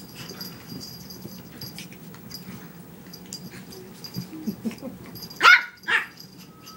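Small puppy barking twice in quick succession, two sharp high yips about half a second apart during rough play, after a stretch of faint scuffling on the rug.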